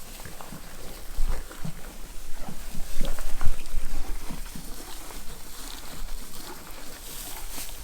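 Cows chewing and crunching food scraps, a run of irregular close crunches, with a low wind rumble on the microphone.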